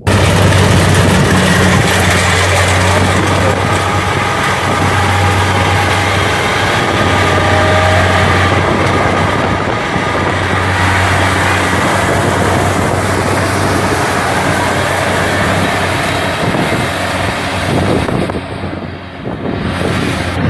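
Rice combine harvester running close by: a steady engine hum under a loud, even rushing noise from the machine working. It starts abruptly and dips briefly near the end.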